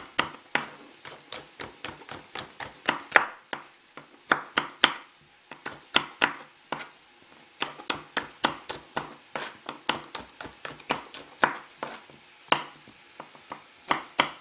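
Chef's knife dicing bell peppers on a wooden chopping board: a run of sharp knocks as the blade strikes the board, about three a second, with a couple of short pauses.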